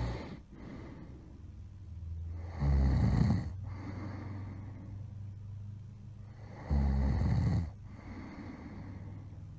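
A person snoring really loud: two long snores about four seconds apart, about 3 s and 7 s in, with quieter breathing between them.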